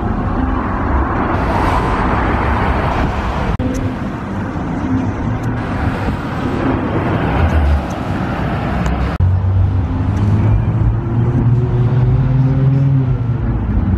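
Street traffic: cars rolling past with tyre and engine noise, in three separate stretches that change suddenly about three and a half and nine seconds in. In the last stretch a classic car's engine idles by with a low, steady hum.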